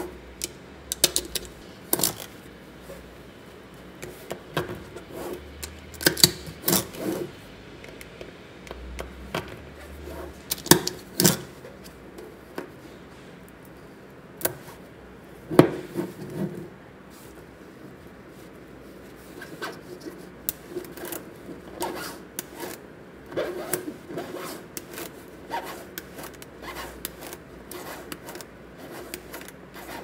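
Small neodymium magnetic balls clicking and clattering as they are snapped together and pulled apart by hand, in irregular sharp clicks, sometimes several in quick succession.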